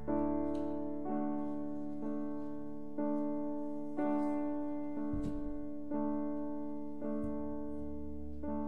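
Electronic keyboard playing soft, sustained piano chords, a new chord struck about once a second and fading between strikes. A couple of dull low thuds come midway.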